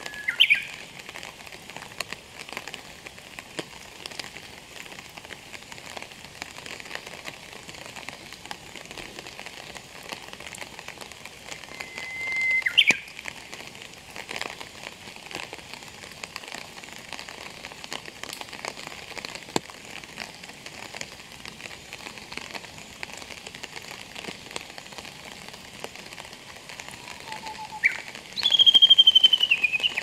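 Male Japanese bush warbler (uguisu) singing its whistled song three times: a held whistle ending in a sharp upward flick, just at the start and about 12 seconds in, and near the end a low note followed by a high, falling, warbling phrase. A steady patter of rain runs underneath.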